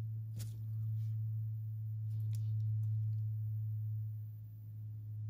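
A steady low hum throughout, with a few faint taps and clicks as a clear acrylic stamp block is pressed onto card and dabbed on an ink pad.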